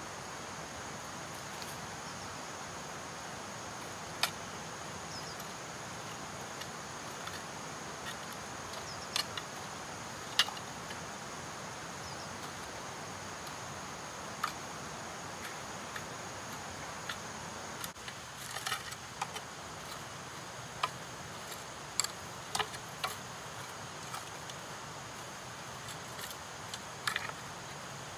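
Steady outdoor background with a continuous high insect drone, broken by a dozen or so short, sharp clicks and snaps, more of them in the second half.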